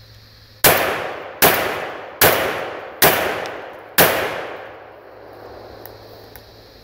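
Remington 1100 semi-automatic 20-gauge shotgun firing slugs: five shots in quick succession, about a second apart, emptying the magazine. Each shot trails off over most of a second.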